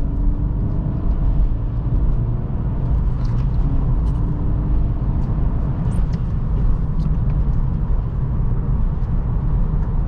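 A 2023 Acura Integra with a turbocharged four-cylinder, driving along a road: a steady low rumble of road and engine noise.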